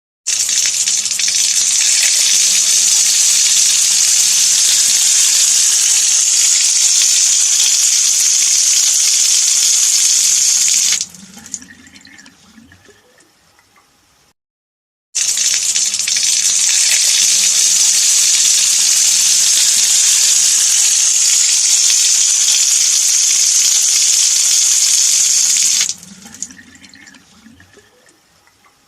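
Tap water running hard into a stone sink, a steady rush that cuts off abruptly after about eleven seconds, followed by a few seconds of trickling and drips fading away. After a short silence the same run, stop and trickle happens a second time.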